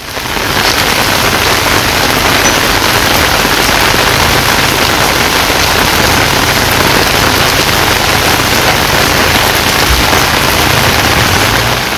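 Heavy rain falling on flooded streets, a loud, steady, dense hiss.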